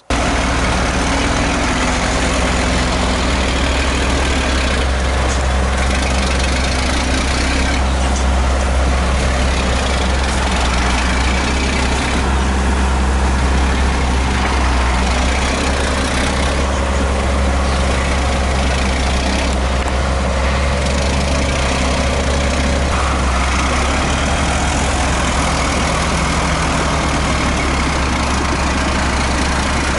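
Diesel engine of a small tracked crawler running steadily under load as it tows a heavy 22-ton truck through mud. It makes a constant deep drone with a broad wash of noise over it.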